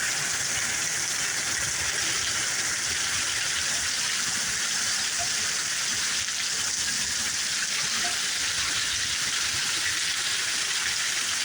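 Heavy thunderstorm downpour: rain pouring in a steady, dense hiss.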